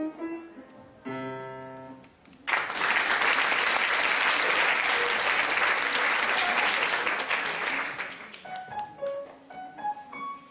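Grand piano playing single notes and a held chord. About two and a half seconds in, audience applause breaks in for about six seconds, louder than the piano, then single piano notes resume.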